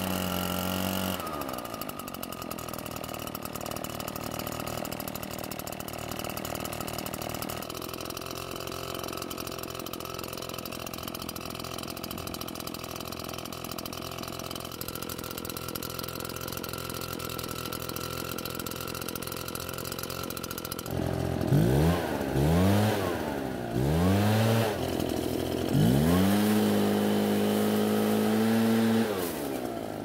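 Redmax EBZ8500 backpack blower's two-stroke engine running just after a hard start. Its note drops and settles about a second in, it idles steadily while warming up, and then from about two-thirds through it is revved up and down several times.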